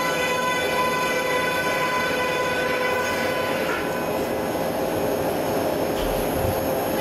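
Brother Speedio U500Xd1 machining centre milling with a 16 mm end mill at 10,000 rpm under flood coolant: a steady pitched cutting whine with several overtones over a hiss of coolant spray. The higher overtones fade about four seconds in.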